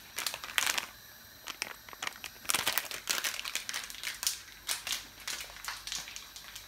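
A baking soda packet crinkling as it is handled and opened, in an irregular run of sharp rustles and crackles.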